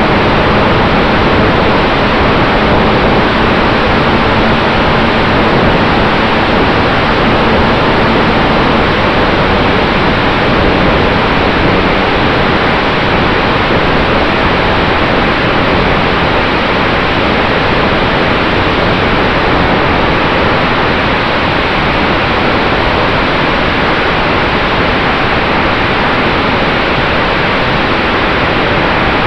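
Steady loud rush of airflow over a camera mounted on a radio-controlled P-51 Mustang model in flight, with a faint steady hum underneath.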